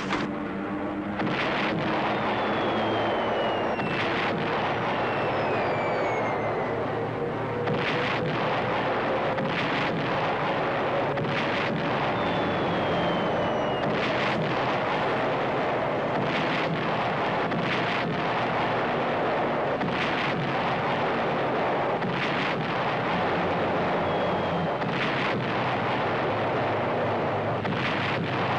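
Artillery barrage: a steady rumble with sharp shell explosions about every one to two seconds, and several slowly falling whistles of incoming shells in the first several seconds.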